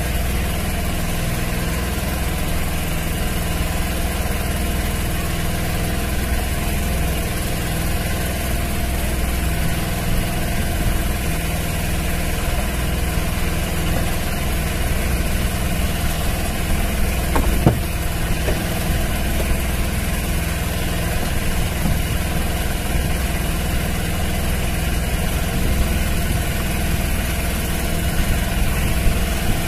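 A fishing boat's engine idling steadily, with a low, even drone. There is a single sharp knock partway through.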